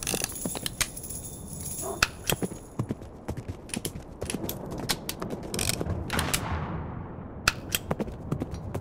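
Slot machine game sound effects as the reels spin and stop: a run of short clicks and knocks, and a swishing sweep about six seconds in that fades out.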